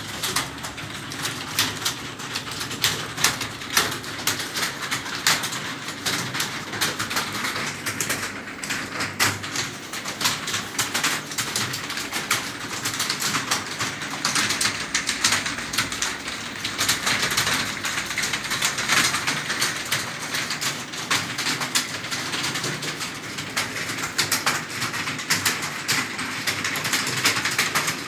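Fast typing on a computer keyboard during a typing test: a dense, unbroken stream of key clicks.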